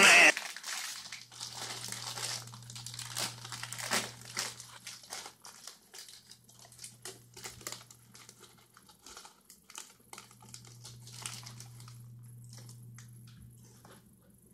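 Plastic snack bag crinkling and crackling in irregular bursts as hands pull at it to get it open.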